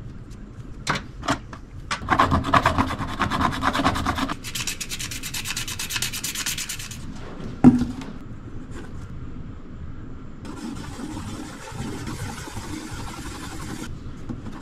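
Sandpaper rubbed back and forth in quick strokes, scuffing plastic so the JB Weld epoxy will adhere. One sharp knock comes about halfway through. Near the end there is a steady scraping as the two-part epoxy is mixed with a stick on cardboard.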